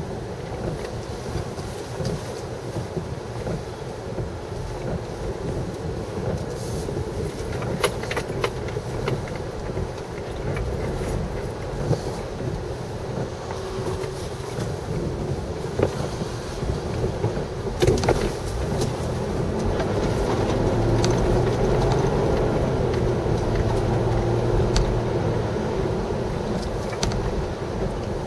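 Steady wind rushing over the microphone with a low vehicle rumble underneath and a few sharp knocks, swelling louder about two-thirds of the way through.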